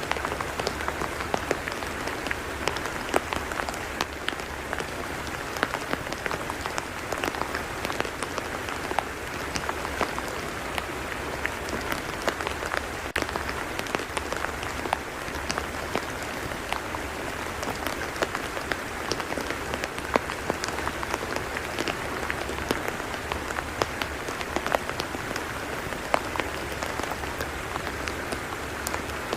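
Steady rain falling on a tidal mudflat: a continuous hiss dotted with many sharp drop ticks.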